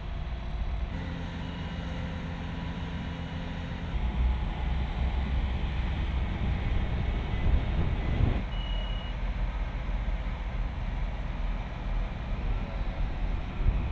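Construction machinery running with a low rumble, including a steady engine hum for a few seconds near the start, and one short high beep a little past halfway.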